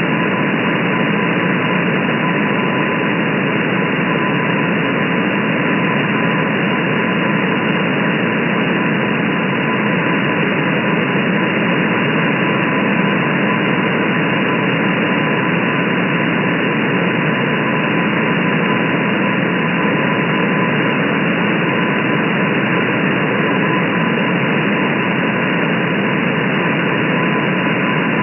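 Shortwave radio static from an SDR receiver in upper-sideband mode, a steady band-limited hiss, with a faint steady high tone running through it: the weak CW Morse signal of the M12 number station on 10842 kHz.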